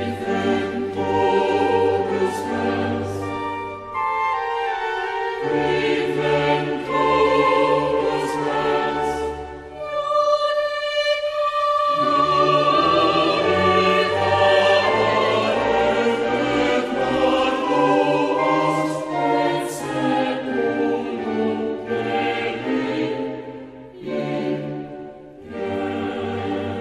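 Choir and orchestra performing a Brazilian colonial-era sacred funeral responsory in the classical style: sung voices over sustained strings and a low bass line. The music dips briefly near the end before going on.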